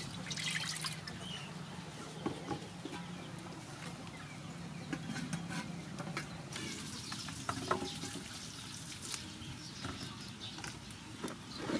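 Water poured into an aluminium wok, then scattered light clinks and knocks of the pan and its domed aluminium lid, with chickens clucking in the background.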